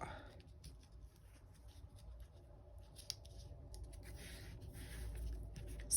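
Faint papery rustling and scraping in short spells, mostly in the second half: a planner sticker being handled, peeled from its sheet and pressed onto a paper page.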